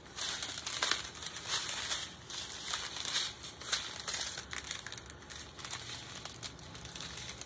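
A strip of small plastic bags of diamond-painting drills crinkling as it is handled, with irregular crackles throughout.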